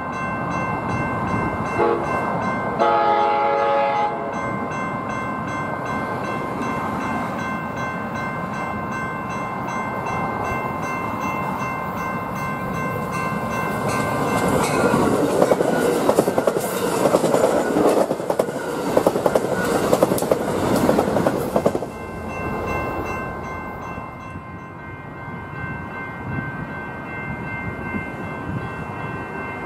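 Amtrak Pacific Surfliner passenger train sounding one short horn blast about three seconds in as it approaches. It then passes close by at speed from about halfway through, loud, with a rapid clickety-clack of wheels over the rail joints. After a sudden drop in level the sound becomes the quieter running rumble of a San Diego Trolley light-rail train.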